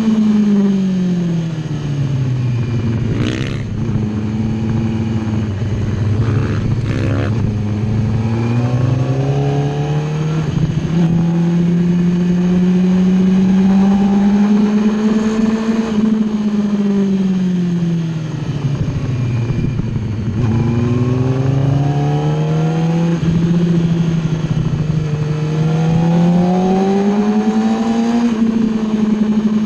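Superbike engine heard from onboard on a race track: the engine note falls as the bike slows for a bend, with quick short revs near 3 and 7 seconds, then climbs steadily as it pulls out; it falls and climbs twice more. Wind rush on the microphone throughout.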